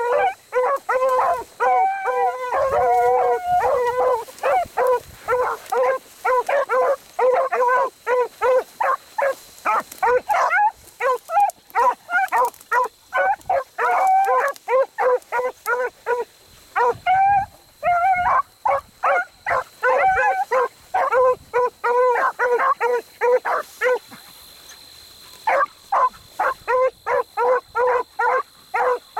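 Two beagles baying as they trail a rabbit's scent in a brace trial: a fast, continuous run of short pitched bays, several a second, with a break of a second or two near the end before they pick up again.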